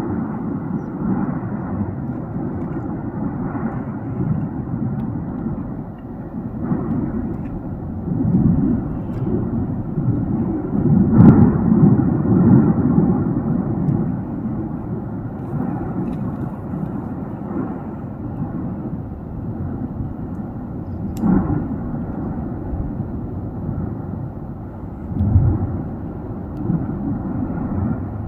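Tajogaite volcano erupting: a continuous deep rumble that swells and fades. Sharp cracks from explosions come about a third of the way in and again past the two-thirds mark.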